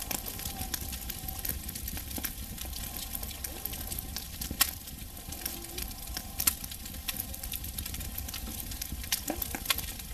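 Wood fire crackling, with irregular sharp snaps and pops over a steady hiss; two louder pops come near the middle.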